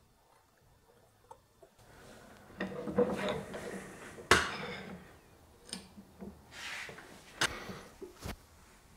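Metal-on-metal clinks, scrapes and knocks from working a 1-ton arbor press: the aluminum part and press-in insert are set on the steel anvil and the ram is brought down onto the insert. The sharpest knock comes a little over four seconds in, with a few more single knocks near the end.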